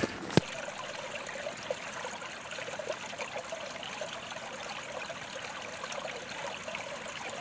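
A small stream trickling steadily, with many small splashes and gurgles.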